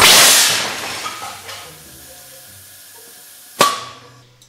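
Pneumatic air cannon firing at 8 bar: a sudden loud blast of air that hisses away over about a second and a half. A single sharp crack with a brief ring follows about three and a half seconds in.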